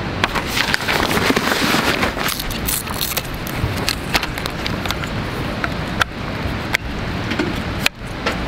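Clear plastic packaging bag rustling and crinkling while a folding camp cot's black leg frames are handled and pulled out of it. Several sharp clicks and knocks come from the frame parts.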